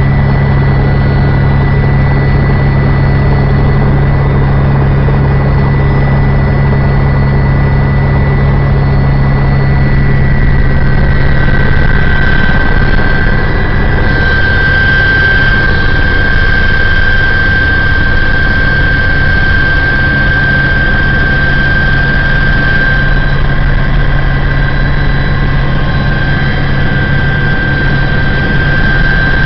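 Small aircraft's engine running steadily at high power through a takeoff. About ten seconds in its pitch steps up a little, and it then holds a steady note while the aircraft climbs.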